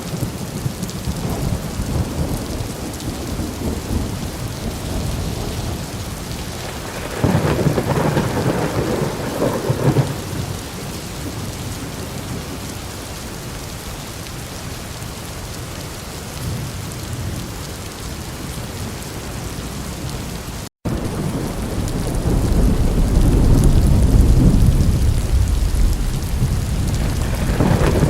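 Steady heavy rain with thunder: a sudden thunderclap about a quarter of the way in that rumbles for a few seconds, then, after a split-second dropout about two-thirds through, a long low rolling rumble that builds toward the end.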